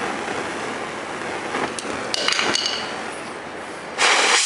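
Propane torch flame hissing steadily, with a few light metal clinks and a brief ring about two seconds in. Near the end the hiss jumps suddenly louder.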